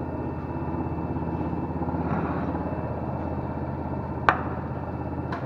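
Hydraulic shop press running with a steady, fast-pulsing hum as it presses a wheel hub into a new front wheel bearing, with a sharp metallic click about four seconds in and a smaller one near the end.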